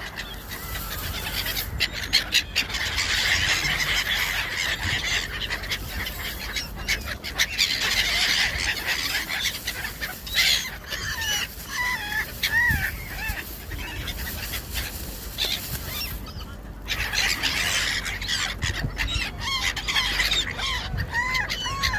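A flock of gulls calling over one another while feeding: a dense, continuous chorus of cries, with single arched, up-and-down calls standing out about halfway through and again near the end.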